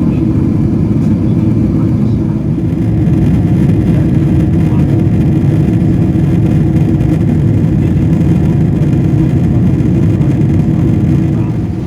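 Loud, steady cabin rumble of a Boeing 777-300ER, from its GE90 engines and rushing air, heard inside the cabin. It swells a little about three seconds in and eases slightly near the end.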